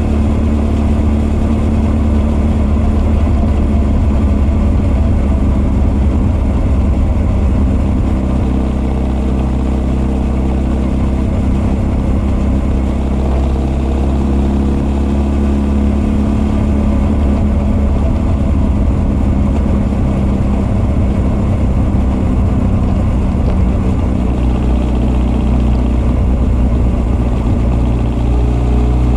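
Honda CB1300 SF inline-four breathing through Keihin FCR41 carburetors and an r's gear Wyvern full exhaust, running loud and steady at a fairly even engine speed while ridden, with carburetor intake and exhaust sound together.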